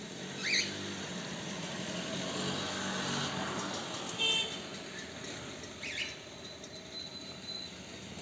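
Morning street ambience: a motor vehicle's engine hum passing, swelling around two to three seconds in and then fading. Short bird chirps come about half a second and six seconds in, and a brief high toot about four seconds in.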